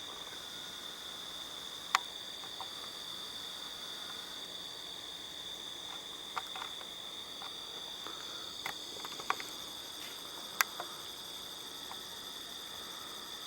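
Crickets chirring steadily in a high, unbroken tone, broken by a few sharp clicks: one about 2 seconds in and a cluster near the end.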